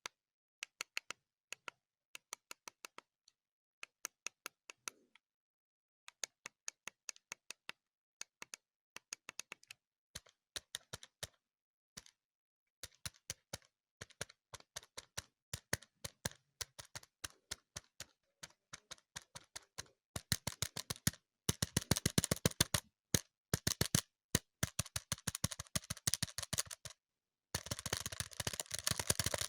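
Button clicks: sharp clicks in quick runs with short pauses between them, the runs growing denser and faster in the last third.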